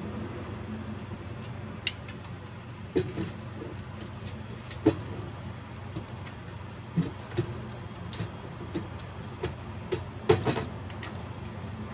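Scattered clicks and knocks from hands working inside a vending machine's door while the bill validator is being refitted, over a steady low hum. The loudest knock comes a little after ten seconds in.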